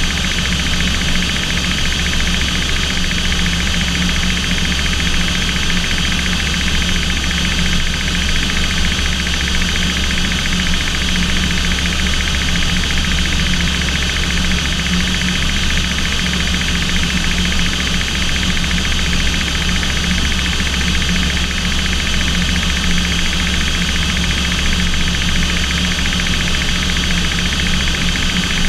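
Steady drone of an aircraft's engines in flight, heard inside the cockpit: a deep hum with a steady whine above it, unchanging in pitch and level.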